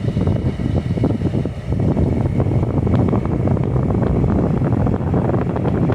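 Car driving, with steady road rumble and wind buffeting the microphone; the noise gets a little louder about two seconds in.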